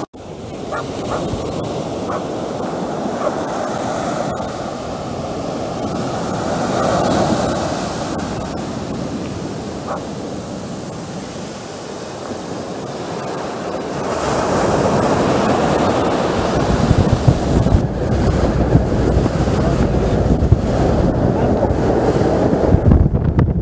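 Sea water washing around the feet in the shallows and small waves surging up a black-sand beach in steady surf. About two-thirds of the way through, louder, deeper gusting wind on the microphone takes over on a moving boat.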